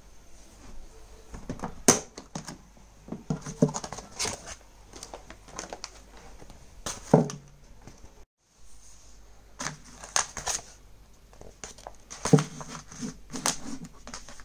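Clear plastic vacuum-sealer bag crinkling and rustling as it is handled, with a few sharp clicks and knocks at irregular intervals, the loudest about two seconds in, near the middle and about three-quarters through.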